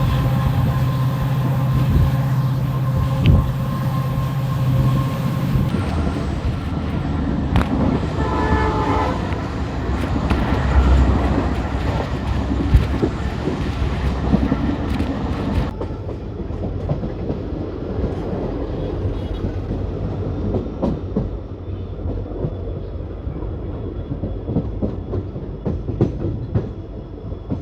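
WDP4D locomotive's two-stroke EMD diesel engine humming steadily. Then a train passes with a brief horn call and wheels clattering over the rail joints.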